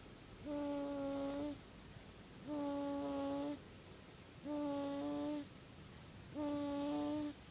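Sleeper snoring with a humming, whistle-like tone: four steady-pitched snores, each about a second long, about one every two seconds.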